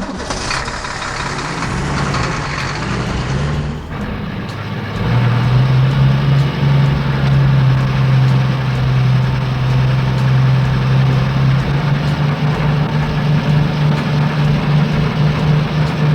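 Cement mixer truck engine sound effect, running steadily. A noisy rush fills the first few seconds, then a louder, steady low engine hum comes in about five seconds in.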